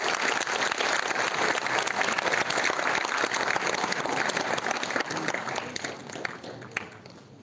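Audience applauding, a dense patter of many hands clapping that thins out and dies away over the last two seconds.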